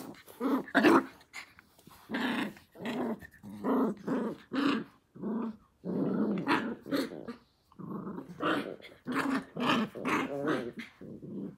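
Australian Cattle Dog puppies growling in play as they wrestle and mouth at each other: a rapid run of short growls, nearly two a second, with brief gaps.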